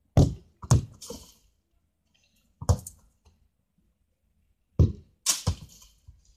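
A handful of sharp knocks and thuds close to the microphone: three in quick succession in the first second, one near the middle, and two more about five seconds in, each dying away quickly.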